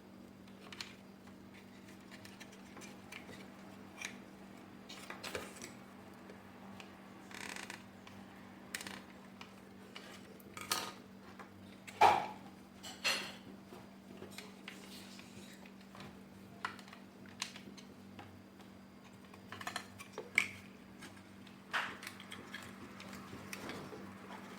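Hard plastic parts of a vacuum cleaner clicking and clattering as they are handled and fitted together by hand, in irregular knocks with the loudest about halfway through. A faint steady hum sits underneath.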